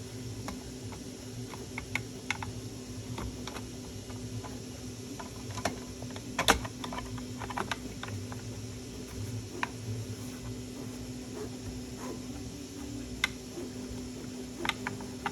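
Irregular light clicks and taps of hard plastic 3D-printed model parts being handled and pressed together as the cab is worked into line, with one sharper click about six and a half seconds in. A steady low hum runs underneath.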